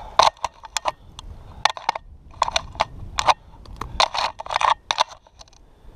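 Steel ice chisel chopping into refrozen ice at an ice-fishing hole: a string of sharp, uneven strikes with crunching and scraping of ice chips.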